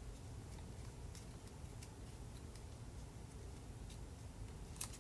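Faint, scattered ticks and light crinkles of small folded paper pieces being handled and slotted together by fingers, with one sharper click near the end.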